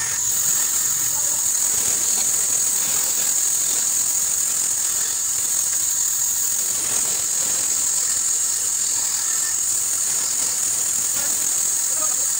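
Band saw running steadily, its blade cutting small pieces of wood, with a constant high hiss over the machine's hum.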